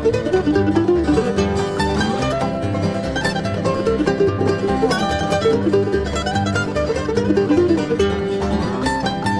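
Bluegrass band playing an instrumental passage without singing: dobro, banjo, mandolin and guitar over bass, with sliding dobro notes among the picked strings.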